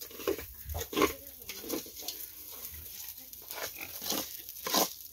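Domestic pig grunting: a string of short, irregular grunts.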